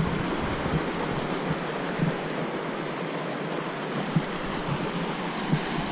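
Steady rushing hiss of a rocky mountain stream, with a few soft low thumps scattered through it.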